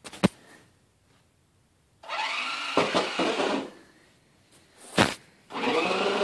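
Toy remote control monster truck's electric motor running in two short bursts of about a second and a half each, with sharp knocks at the start and about five seconds in as the truck bumps into things.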